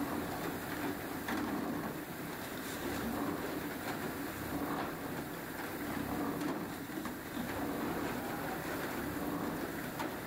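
Workshop machinery running with a steady low hum, with a few faint light knocks as hollow plastic lotas are handled.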